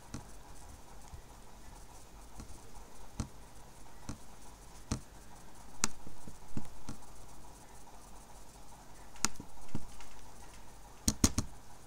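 Computer mouse clicking: single sharp clicks a second or so apart, then three quick clicks in a row near the end.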